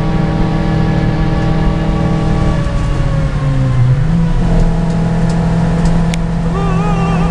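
Suzuki Swift Stage 2's engine heard from inside the cabin, running hard at high revs on track. About two and a half seconds in, the revs fall away for a second and a half, then jump back up and hold steady.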